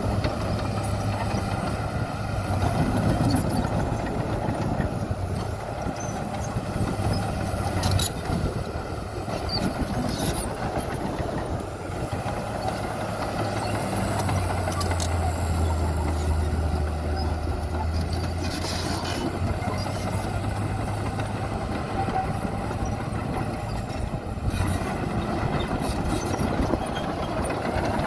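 Heavy diesel earthmoving machinery running, a bulldozer or dump truck, with a steady low engine drone that swells for a few seconds in the middle, and occasional sharp knocks and clanks.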